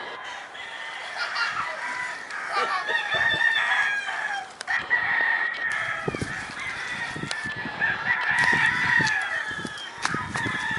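Chickens clucking and a rooster crowing, several drawn-out calls one after another.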